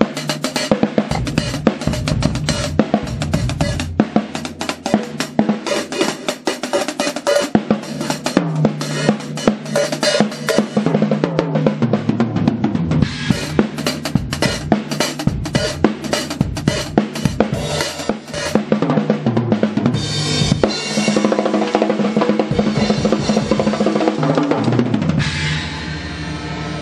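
Drum kit played solo in a fast improvisation: rapid strokes across snare, toms, bass drum and Zildjian cymbals. Near the end the strokes give way to a sustained wash, then the kit drops back, with cymbals and drums left ringing.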